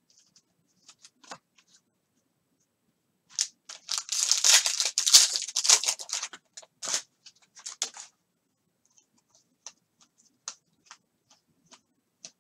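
Foil wrapper of a Panini Mosaic basketball hobby pack torn open by hand, with crinkling for a few seconds in the middle. It is followed by scattered light clicks as the cards are handled.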